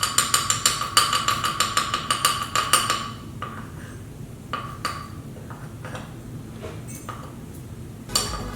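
A metal measuring spoon rapidly clinking against a container, each strike ringing, for about the first three seconds, then a few scattered light clicks, and another quick run of clinks near the end.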